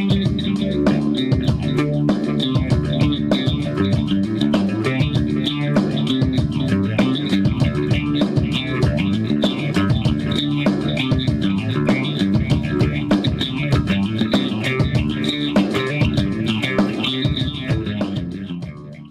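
Background music with plucked guitar and bass over a steady beat, fading out at the very end.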